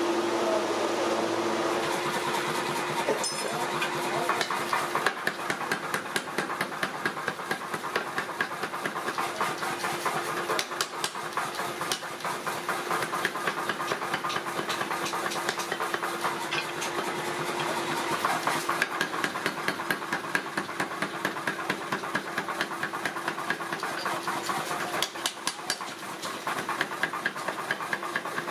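Mechanical power hammer pounding a red-hot steel blank into a brick trowel, with rapid regular blows, several a second, over a steady hum. The blows start a few seconds in.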